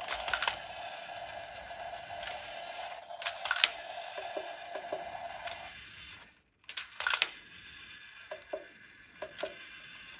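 Toy domino train's small electric motor and plastic gears whirring, run slowly at low voltage, with sharp plastic clacks as dominoes are dropped onto the table. About six seconds in the whir drops away to a much fainter run, and a few lighter clicks follow.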